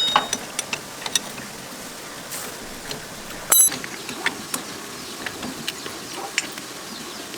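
Hand tools clicking and tapping on metal tractor parts, with one sharp, ringing metallic clank about three and a half seconds in.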